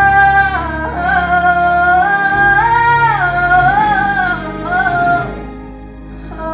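A woman singing a gospel song into a microphone, holding long, wavering high notes that slide upward about three seconds in, over sustained low accompaniment. Her voice fades about five seconds in, leaving a quieter stretch.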